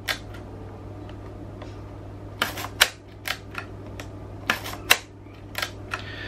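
Yashica Electro 35 rangefinder being fired and wound over and over: sharp clicks of the shutter release and film advance, with two clusters of quick clicks about two and a half and four and a half seconds in. The shutter is firing properly now that its pad of death has been replaced.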